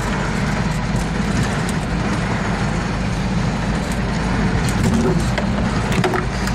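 Off-road vehicle's engine running under load as it drives across a shallow, half-frozen creek. It gets a little louder about five seconds in, with a few sharp knocks near the end.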